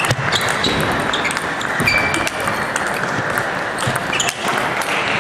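Table tennis balls clicking off rackets and table in quick, irregular hits, over the steady background noise of a busy hall with more tables in play.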